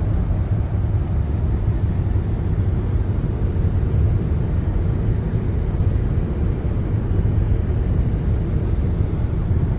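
Steady low road and engine rumble inside a moving car's cabin, with no distinct events.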